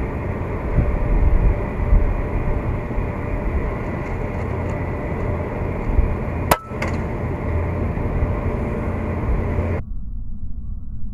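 Strong wind buffeting the microphone, with one sharp crack of a suppressed FX Impact M3 PCP air rifle firing about six and a half seconds in and a fainter crack about a third of a second after it. Near the end the sound turns suddenly muffled.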